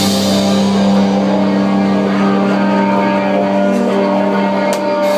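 Hardcore rock band playing live: a crash hit, then a distorted electric-guitar chord held ringing, with another brief cymbal hit near the end.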